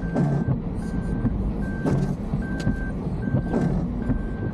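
A car's in-cabin reverse-gear warning beeping: a single steady-pitched beep, about half a second long, repeating evenly about every 0.8 s while the car backs into a parking space, over the low rumble of the engine.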